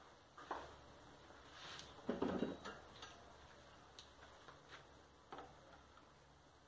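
Metal hand tools being picked up and handled, scattered light clinks and ticks with a louder clatter about two seconds in.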